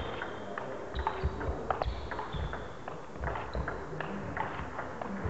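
Table tennis rally: the ball clicking again and again off bats and table, with short high squeaks of sports shoes on the wooden hall floor.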